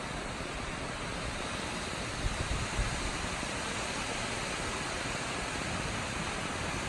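Steady, even rush of an incoming storm, with a few brief low thumps a little over two seconds in.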